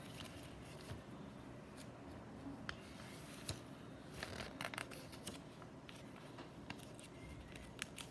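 Faint scattered clicks and short rustles of small pieces being handled and set down, several close together about four to five seconds in.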